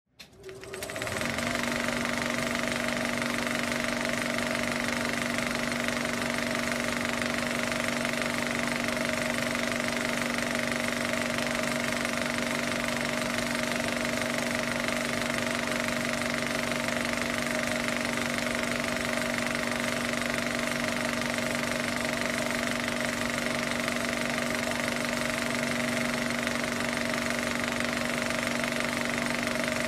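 Film projector running: a steady mechanical whir and rapid clatter that comes up about a second in and then holds unchanged.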